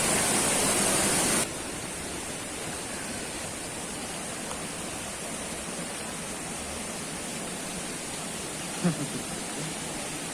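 Steady rushing noise of a waterfall. It drops sharply in level about a second and a half in, and there is a brief knock near the end.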